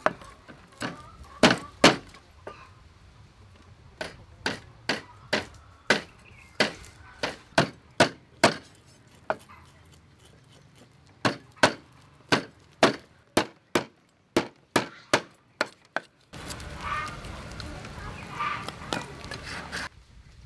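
Handheld metal fish scaler scraping scales off a whole fish on a wooden chopping block, each stroke a sharp scraping click, about two a second in runs with short pauses. Near the end the strokes stop and a steady hiss takes over.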